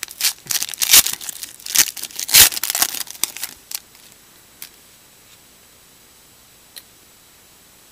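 A trading-card pack wrapper is torn open and crinkled by hand: a dense rustling crackle for about the first three and a half seconds, then only a couple of faint clicks.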